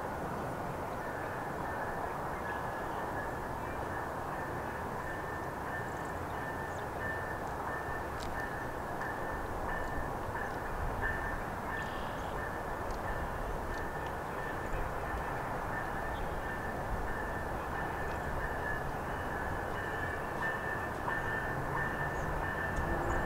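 Grade-crossing warning bell ringing rapidly and steadily over a constant background rumble, with a passenger train approaching from a distance; the sound grows a little louder near the end.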